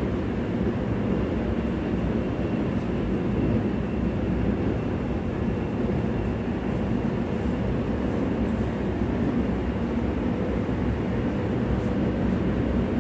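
Interior running noise of a Korail Class 351000 electric multiple unit on the move: a steady, even rumble heard from inside the passenger car, with the windows dark as in a tunnel.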